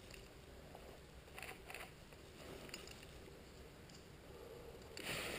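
Quiet outdoor ambience with a few faint clicks or crunches about a second and a half in, then a louder broad rustling hiss starting near the end.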